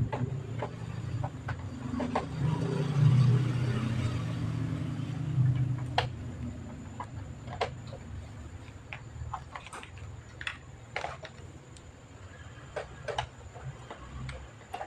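Scattered light clicks and knocks over a low rumble. The rumble is strongest in the first half and fades after about six seconds.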